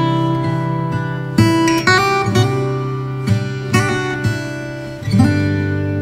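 Background music: an acoustic guitar plucking and strumming chords, with a new chord struck every second or so.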